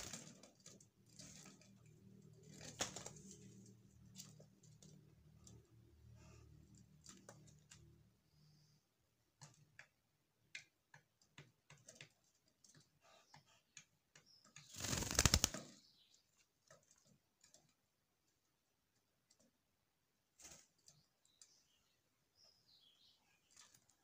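Faint, scattered light clicks and taps of collared doves stepping and pecking on a wooden cage floor, with a brief flurry of wing flaps about halfway through, the loudest sound. A low hum sits under the first third.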